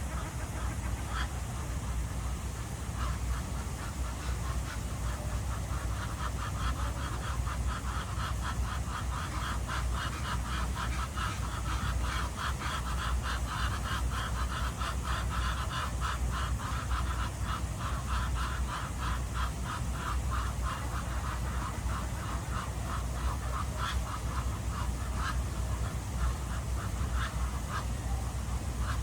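Ducks quacking in a long run of quick, repeated calls, busiest through the middle and thinning out towards the end, over a steady low background rumble.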